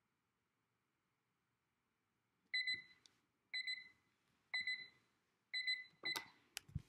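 Lakeshore digital countdown timer's alarm going off as it reaches zero: short high beeps about once a second, four or five times. Near the end a hand presses the timer to stop it, with a few clicks and knocks.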